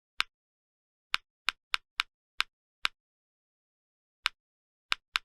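Short, sharp key-press clicks from a VR drum-like keyboard, one for each key struck, about ten at an irregular typing pace, with a pause of over a second near the middle and silence between the clicks.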